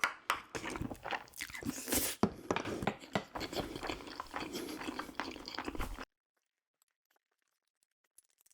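A person chewing and biting food close to the microphone, a dense run of small wet mouth clicks and crunches that cuts off abruptly about six seconds in.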